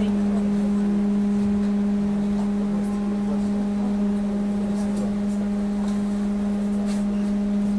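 Steady electrical hum of a trolleybus standing still: one low, even tone with fainter higher overtones.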